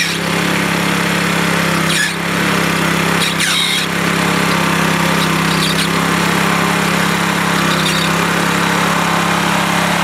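Powermate walk-behind garden tiller's small gasoline engine running steadily under load as its tines churn through thick, root-bound sod.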